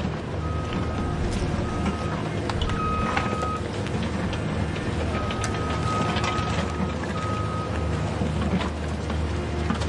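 Electric motors of a Huina RC excavator running as it works, a steady low hum. A high electronic beep on one pitch sounds on and off at uneven lengths over it.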